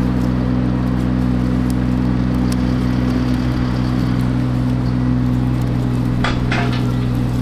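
A steady engine drone, as of a machine running at a constant speed close by. About six seconds in come a few short crackles as insulating tape is wrapped around the cable bundle.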